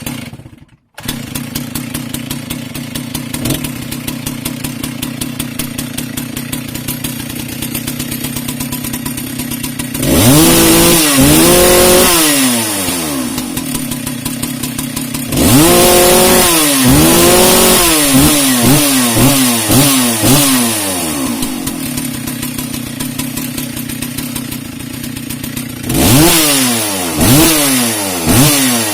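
Stihl 064 two-stroke chainsaw starting and idling with a fast steady beat, then revved up and let back down: a couple of revs about ten seconds in, a run of repeated revs from about fifteen seconds, and more revs near the end.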